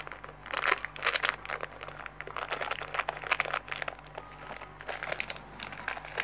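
Packaging crinkling and rustling as it is handled, in irregular crackling bursts.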